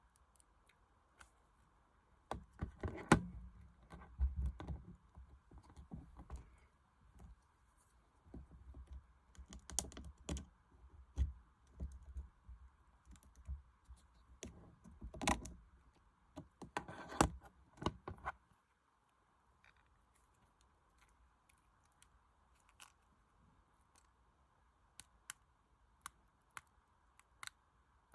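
Irregular clicking and rustling handling noise, busy for about the first eighteen seconds, then only a few sparse faint ticks.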